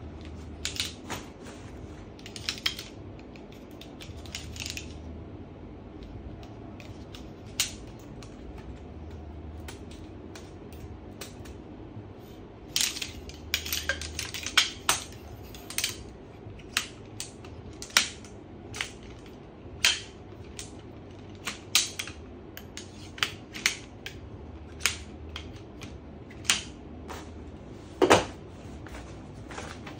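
Shock-corded aluminium poles of a Helinox Table One camping table frame clicking and clacking as the sections snap together and seat in the hubs: a long run of sharp clicks, with a quick rattling cluster about halfway through. The loudest knock comes near the end as the assembled frame meets the wooden floor.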